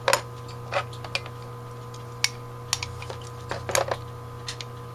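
Irregular light clicks and taps of small metal carburetor parts and the cast Autolite 1100 carburetor body being handled and set down on a plastic parts tray, with a steady low hum underneath.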